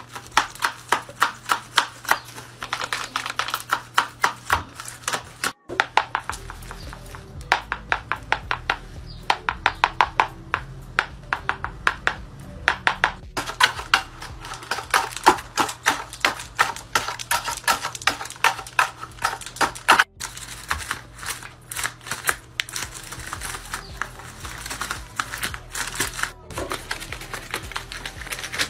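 Folded-paper dragon puppets snapping their jaws over and over: a fast clatter of dry papery clacks, several a second, with brief gaps between one dragon and the next.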